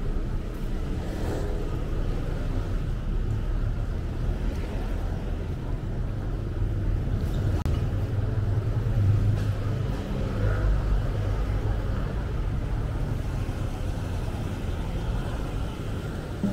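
Road traffic: motor vehicles running past, a steady low rumble that swells for a few seconds around the middle.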